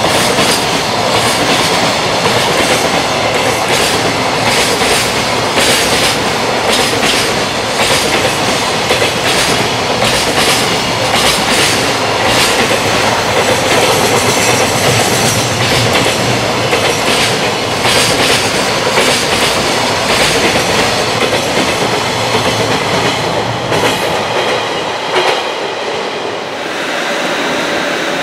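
Container flatcars of a freight train rolling past at speed, their wheels clattering over the rail joints in a run of rapid, irregular clicks. About two seconds before the end the clatter stops and a steady, quieter hum remains.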